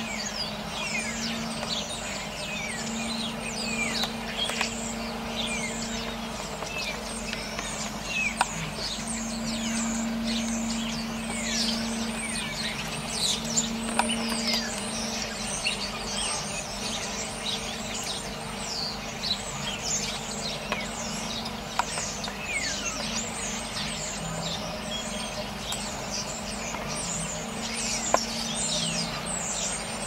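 A flock of starlings chattering: many short, overlapping falling whistles and chirps, with a low steady hum coming and going underneath.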